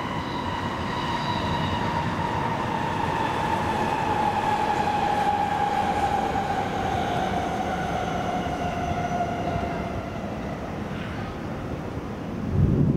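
A passing vehicle's whine, falling slowly and smoothly in pitch over about ten seconds before fading, over a steady low rumble. A louder low rumble swells near the end.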